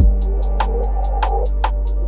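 Background music with a steady beat: a held low bass under quick ticks about five a second.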